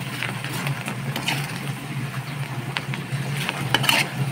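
Sliced onions frying in hot oil in a steel pan, sizzling steadily while a metal ladle stirs and scrapes against the pan, with a few sharper clinks near the end. A steady low hum runs underneath.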